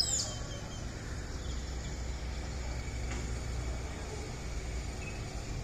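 Steady low rumble of an idling vehicle engine, with a brief high descending chirp at the very start.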